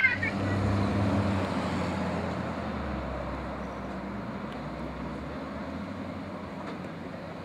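A motor vehicle's engine and road noise with a low hum, loudest at the start and fading slowly as it moves away.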